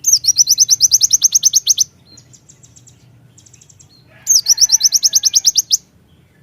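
Konin (kolibri ninja), a sunbird, singing: two rapid trills of high, sharp notes, about eight a second, each note sweeping downward, each trill lasting nearly two seconds, with softer chips between them.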